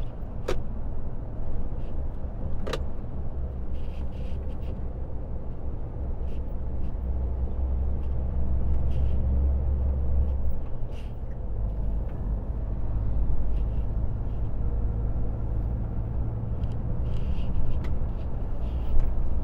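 Iveco truck's diesel engine running under way, heard inside the cab with road noise as a steady low drone. The engine note shifts about ten seconds in, and a couple of sharp clicks come in the first few seconds.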